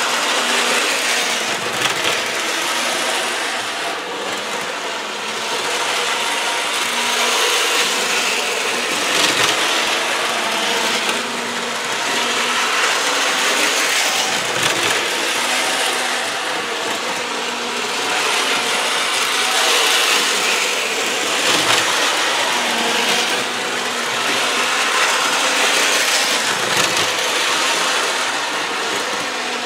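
N gauge model train locomotive running on its track loop: the small electric motor whirring and the wheels clattering along the rails, swelling and fading every few seconds as it comes round the layout.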